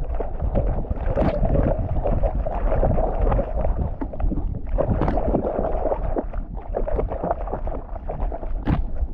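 River water sloshing and splashing around a GoPro worn by a swimming dog, with a steady low rumble on the microphone and many small irregular splashes.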